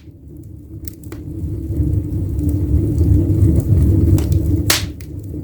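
Wood fire in a fireplace drawing hard: a low roar that swells over the first couple of seconds, with a few sharp crackles, one loud crack near the end.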